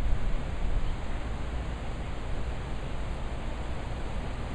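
Thunderstorm rain and gusty wind: a steady rushing noise with a heavy low rumble underneath, a little louder at the very start.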